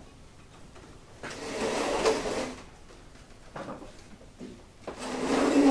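A long wooden crate being handled, making two drawn-out scraping sounds a few seconds apart; the second one, near the end, is the louder.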